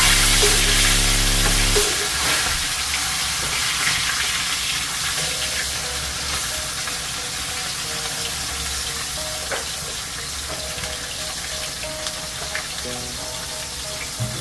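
Tilapia frying in hot oil: a steady sizzle with small crackles. Background music with a heavy bass beat drops out about two seconds in, leaving a faint melody.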